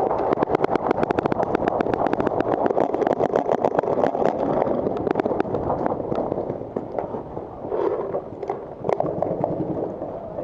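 Paintball markers firing in a rapid volley, many shots a second, several guns at once. After five or six seconds the firing thins to scattered shots.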